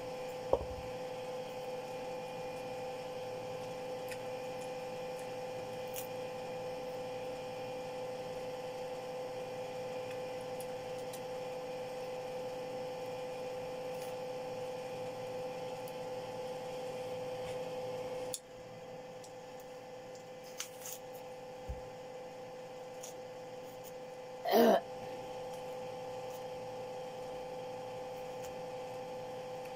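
A steady electrical hum with a few faint clicks. The hiss under it drops a little past the middle, and a brief voice-like sound comes about three-quarters of the way through.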